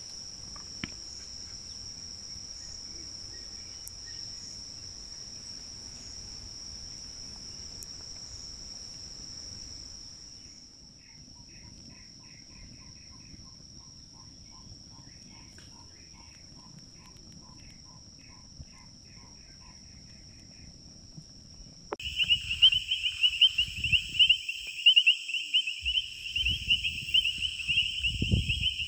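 Insects chirring as a steady high-pitched drone, with a run of evenly repeated chirps in the middle. About two-thirds of the way in, a much louder pulsing cricket trill cuts in, with low handling bumps.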